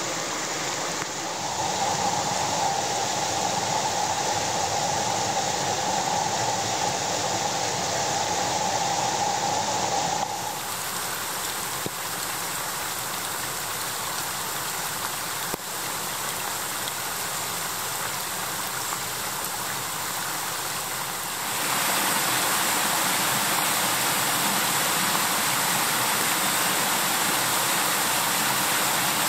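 Water rushing over rocks in a mountain stream, a steady hiss that changes abruptly about ten seconds in and again about two-thirds of the way through, loudest in the last part where it cascades over boulders.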